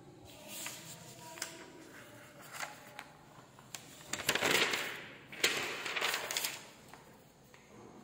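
Paper pages of a workbook rustling as a page is turned over and the book is handled: a few light clicks, then two noisy swishes about halfway through.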